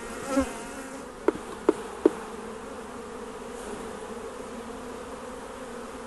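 Honeybees buzzing steadily around an open hive, with three short, light knocks between about one and two seconds in.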